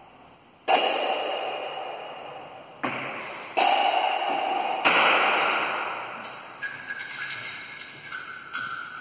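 Sharp percussive hits, four of them in the first five seconds, each ringing out and fading slowly in an echoing, empty room, then a run of quicker, softer taps.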